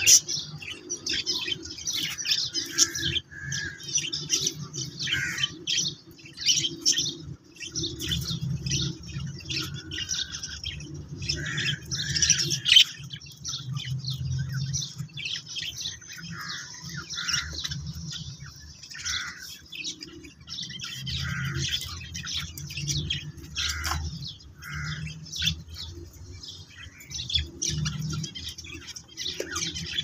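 Zebra finches chirping: a dense, unbroken run of short, high calls, with a low rumble underneath.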